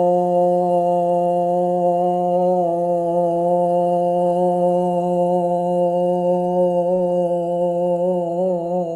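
A woman toning: one long vocal tone held on a single steady pitch, wavering slightly in the last couple of seconds and breaking off at the end.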